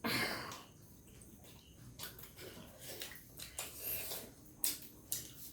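A person eating momos: soft chewing and mouth noises with breathing, and a louder breath just at the start.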